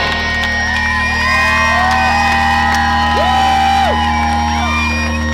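Crowd cheering and whooping over a rock band's last chord held and ringing out through the PA as the song ends. The whoops come as many short rising-and-falling cries over a steady low drone.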